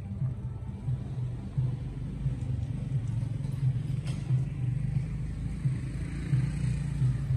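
A low, steady rumble with uneven swells and no clear source, with a faint click about four seconds in.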